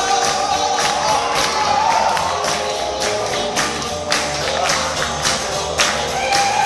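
Live band playing dance music: a steady drum beat under a melody line that bends in pitch.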